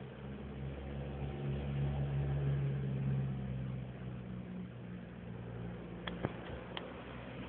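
A steady low mechanical hum, like a motor running, swelling a little a couple of seconds in, with a few sharp clicks near the end.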